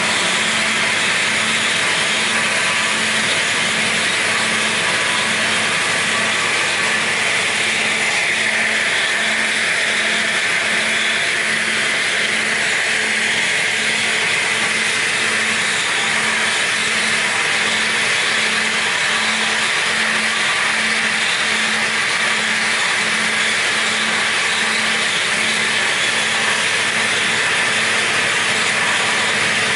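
Double-blade edging saw (MADREW DCKWW 10/15) running steadily, with a constant machine drone and a low hum that throbs at a slow, even beat.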